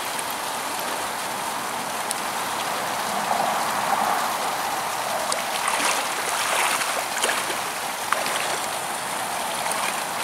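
Steady rush of flowing creek water, with a few faint, brief splashes around the middle.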